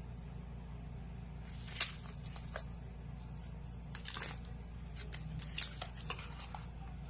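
A sheet of lined paper crinkling and rustling as a kitten bites, claws and wrestles with it on a tile floor, in irregular crackly bursts starting about a second and a half in and dying away near the end.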